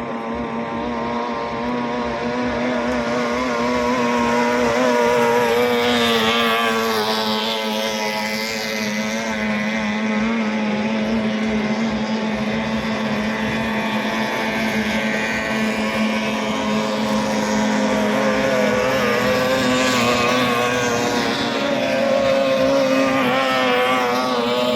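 Outboard motors of 18 hp racing boats running at speed on the water, a steady engine note that wavers slightly in pitch and swells over the first few seconds.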